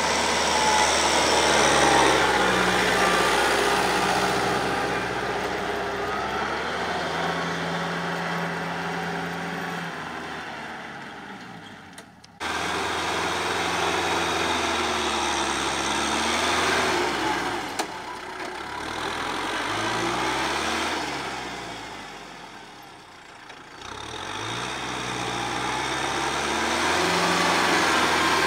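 Kubota M6040 tractor's four-cylinder diesel engine running as it tills a field with a rotary tiller, fading and swelling as the tractor moves away and back. The sound drops and returns abruptly about twelve seconds in.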